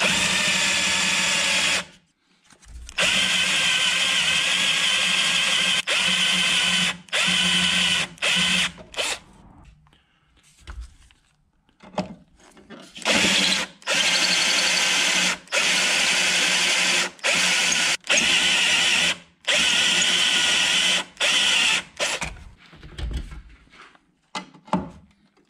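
Drill turning a spot weld cutter in repeated bursts, started and stopped again and again as it cuts out spot welds in the car body's sheet metal. There is a pause of about two seconds near the middle.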